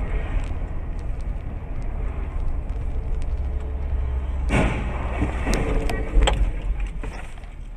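Steady road and engine rumble inside a moving car, then a collision between two cars just ahead: a burst of crashing noise about four and a half seconds in, with the loudest bang a little after six seconds.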